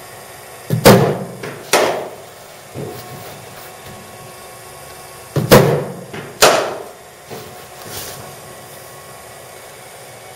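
Cricket balls from a bowling machine knocking against bat, boards and walls in an indoor net, echoing in the hall. Two deliveries, each heard as a pair of loud knocks about a second apart, with a few fainter knocks after each.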